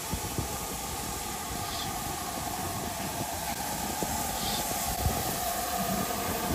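LMS Stanier Class 5 'Black Five' steam locomotive hissing steam steadily, slowly growing louder.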